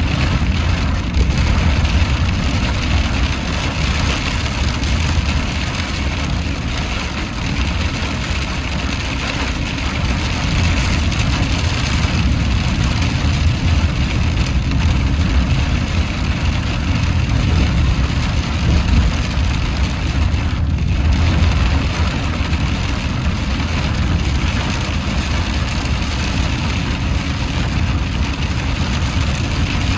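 Heavy rain beating on a car's roof and windshield over the steady low rumble of the engine and tyres on a wet road, heard from inside the moving car.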